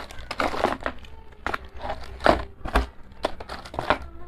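Plastic packaging crinkling and rustling as small action-camera mounts and parts are handled, in several short, irregular bursts.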